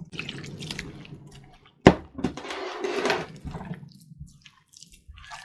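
Water being added to a spice-and-cornflour marinade in a bowl and the wet paste being mixed by hand, with one sharp knock about two seconds in.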